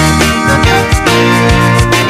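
Zydeco music with a steady beat, laid over the pictures.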